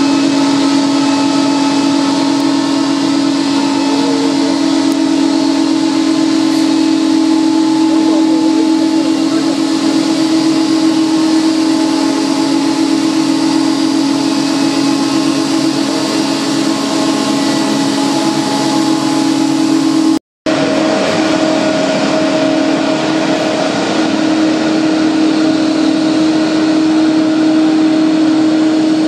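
Boeing 777-200 jet engines running with a steady, loud whine over a broad hiss. The sound breaks off for an instant about two-thirds of the way through and comes back with a slightly changed whine.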